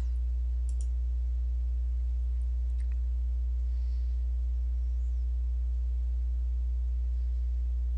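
Steady low electrical hum with a stack of even overtones, mains hum on the recording, with a couple of faint clicks about one and three seconds in.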